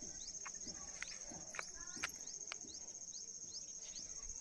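Insects trilling on one steady high-pitched note, with short falling chirps repeating about twice a second and a few scattered sharp clicks.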